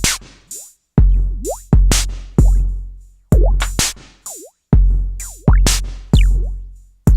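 Electronic drum-machine beat run through an Elektron Analog Heat MKII distortion unit: deep booming kicks, sharp noisy hits and short pitched blips that sweep up and down, in an uneven repeating pattern.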